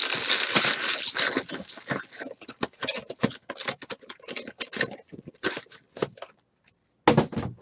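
Foil trading-card pack wrapper crinkling as it is crumpled, followed by a run of quick light rustles and taps as card packs and boxes are handled on the table.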